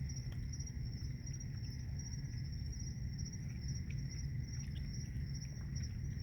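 Night insects, crickets, chirping steadily in a fast pulsing high trill over a steady low rumble, with a few faint scattered clicks.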